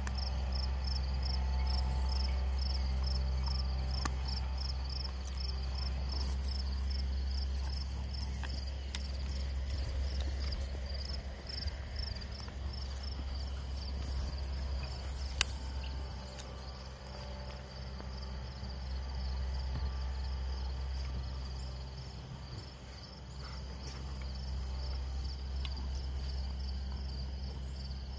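Crickets chirping in an even rhythm, about four chirps a second, over a steady low rumble; a single sharp click about halfway through.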